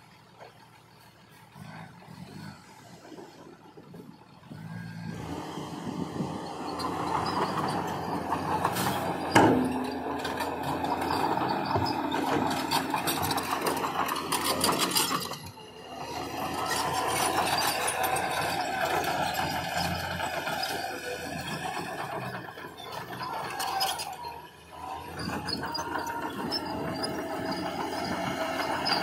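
Heavy earthmoving machinery working: it comes in loud about five seconds in, with engine noise and high, wavering metallic squeals. There is a sharp bang about nine seconds in.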